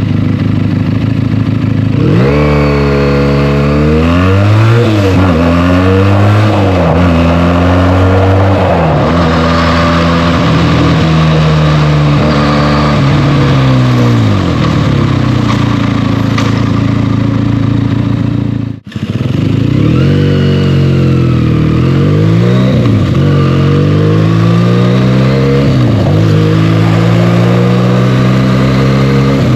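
Benelli TNT 300's stock-exhaust parallel-twin engine pulling through the gears. It runs steady at first, then revs rise and fall again and again as it upshifts, and settles to a steady pitch. The sound cuts out for a moment about two-thirds of the way in, then the engine accelerates and shifts again.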